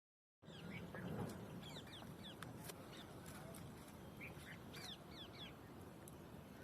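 Birds calling in short, high, quick chirps over a steady low rumble of traffic on a nearby road.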